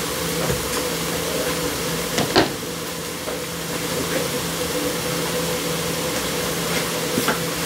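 Onions and mushrooms cooking in a flour roux in a skillet, with light scraping and clicks of a silicone spatula against the pan and one sharp tap about two and a half seconds in. A steady hum and hiss runs underneath.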